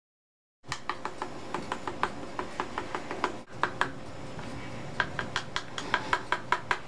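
A rapid series of light clicks or taps, about four a second, with a brief break about halfway.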